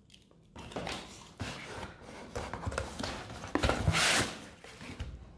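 Rustling and scraping of product packaging being handled while items are lifted out of the box, with one louder rustle about four seconds in.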